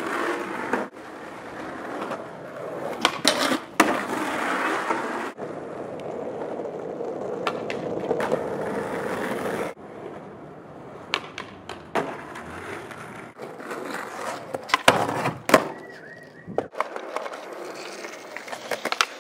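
Skateboard wheels rolling over rough asphalt, broken by sharp clacks of the board popping and landing. The rolling runs loud and steady for about six seconds, then drops away before halfway, and the clacks come more often in the second half.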